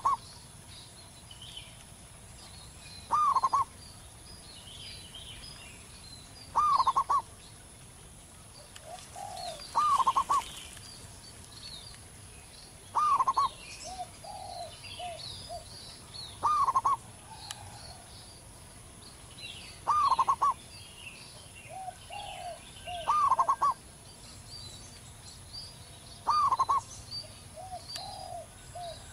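Zebra dove (perkutut) cooing: a short, loud phrase repeated about every three seconds, some of them led in by softer, lower coos. Other small birds chirp faintly in the background.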